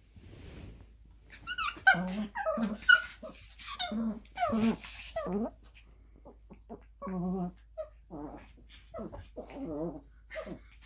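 Small dogs, a Maltese-Pomeranian mix and a Lhasa Apso-Chihuahua mix, making short, wavering growly sounds and whines while they play. The calls come in a run a couple of seconds in, pause briefly, then start again.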